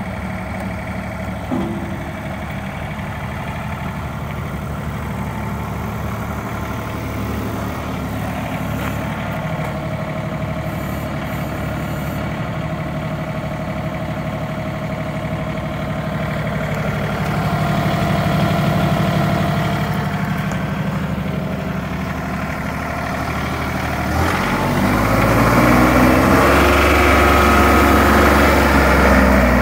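TYM T394 HST tractor's three-cylinder diesel engine idling steadily, swelling briefly a little past halfway. Near the end it is revved up, louder, its pitch climbing and then falling back.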